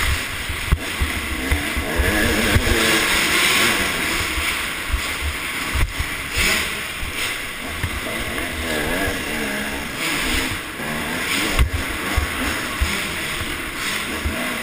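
Motocross bike engine revving up and falling back again and again as it is ridden round a dirt track, heard from a helmet-mounted camera, with wind buffeting the microphone and three sharp knocks along the way.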